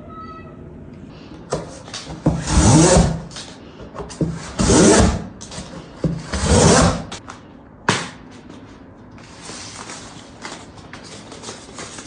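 Cardboard being cut with a 3D-printed cutting tool: three scraping strokes, each under a second and about two seconds apart, then a sharp click and lighter rustling.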